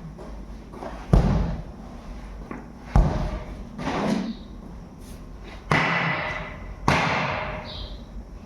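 Four heavy strikes on a truck tyre and its steel rim during tyre work, spaced a second or two apart, the last two ringing on longer.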